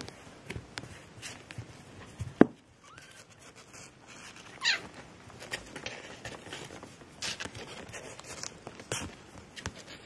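Three-week-old kittens scrabbling about, making scattered small clicks and taps, with one sharp knock about two and a half seconds in and a short falling squeak near the middle.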